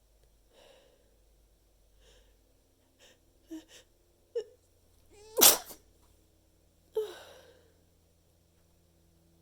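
A person's stifled sneeze muffled into a handful of tissues: a few short, catching breaths build up, then one loud sudden sneeze a little past halfway, followed by a shorter, softer burst.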